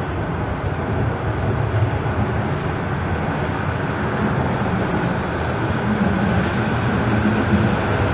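Steady running noise of a TTC Line 4 Toronto Rocket subway train heard from inside the car while it travels between stations: a low rumble of wheels on rail, with a faint motor hum near the end.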